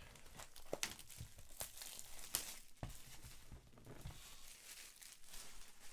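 Crinkling and tearing of trading-card pack wrappers, with irregular small clicks and rustles from packs being opened and cards handled.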